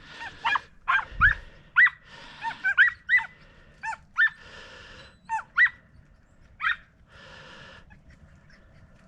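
Hunting dogs whining and yipping in about a dozen short, high cries, with a few breathy pants in between.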